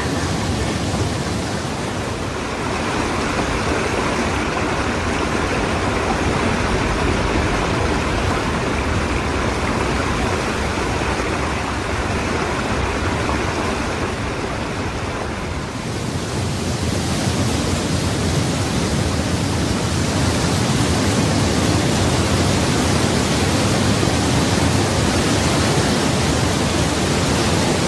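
Steady rush of water from a large waterfall. The sound changes in tone about two seconds in, and again after a slight dip around sixteen seconds in, where it becomes a little fuller.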